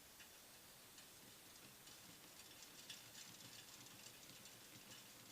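Faint, irregular high crackling and ticking from a running electrostatic (ion-wind) motor, the high-voltage corona discharge at its points. The crackle grows denser about two seconds in.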